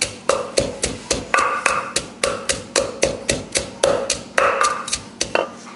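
Wooden pestle pounding garlic and chilies in a clay mortar, a steady rhythm of about three knocks a second.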